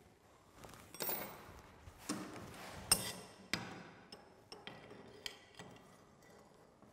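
Steel angle bar clanking against a bench vise as it is set in and clamped: a handful of sharp metallic knocks and clinks with a short ring, the loudest about three seconds in.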